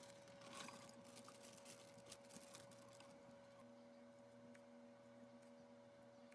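A faint, steady hum holding one pitch, with faint rustling and a few light clicks in the first half.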